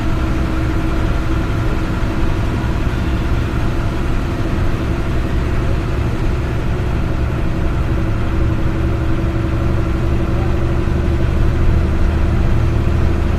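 A moving road vehicle's engine runs steadily, with tyre and wind noise, while a bus overtakes close alongside. A low rumble grows louder near the end.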